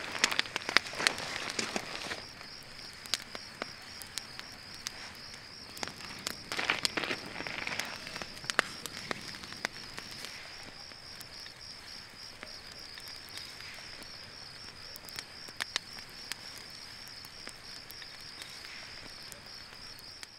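Wood campfire crackling with scattered sharp pops, busiest in the first couple of seconds and again around the middle, then thinning out. Under it runs a steady, high, rapidly pulsing chirp.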